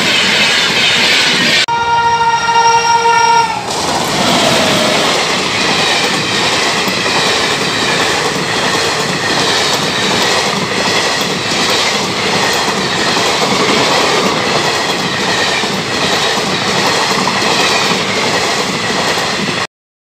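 Passenger train coaches rushing past at speed, with steady rail rumble and wheel clatter over the track. About two seconds in, a train horn sounds for roughly two seconds. Near the end the sound cuts off suddenly.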